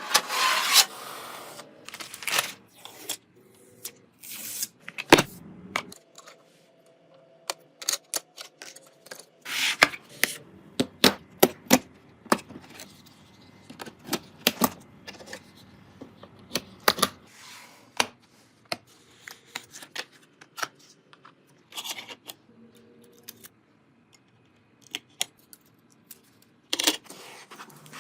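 Irregular sharp clicks, taps and knocks of hard plastic and metal computer parts being handled and fitted together by hand, with short quiet gaps between them.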